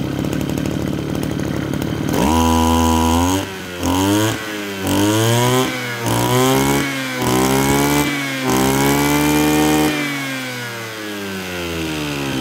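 Mitsubishi TL26 brush cutter's 26 cc two-stroke engine idling, then revved hard about two seconds in: the throttle is blipped up and down about six times, held near full revs briefly, and let fall back toward idle near the end. It picks up quickly without stumbling, which the owner takes as the sign that the high-speed mixture is set right.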